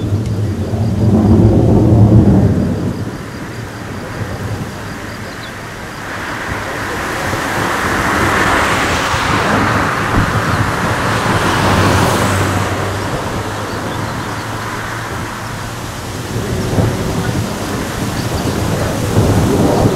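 F-16 fighter jet's engine noise overhead: a deep rumble that swells into a louder, hissing roar from about six to twelve seconds in, eases off, and builds again near the end.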